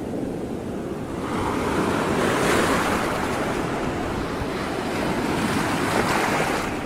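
Rushing noise of wind and water with no motor tone to be heard. It swells about a second in, swells again later, and eases off near the end.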